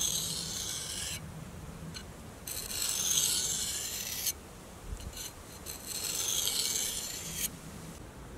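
Steel blade of a Survival Lilly APO-1 fixed-blade knife drawn across an APO-1 sharpening stone: three long, slow sharpening strokes, each a scrape of about a second and a half to two seconds with short pauses between.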